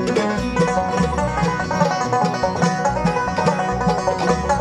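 Bluegrass band of banjo, mandolin, guitar and upright bass playing an instrumental passage between sung lines, with the banjo's picked notes prominent over a steady bass beat.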